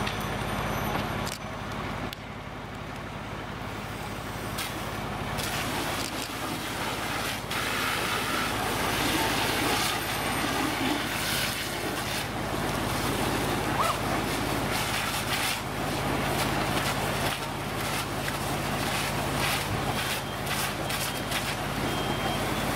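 Fire engine's diesel running steadily at the pump, a low drone, under a constant rushing hiss of water streams and scattered cracks and pops from the fully involved wood-frame house burning.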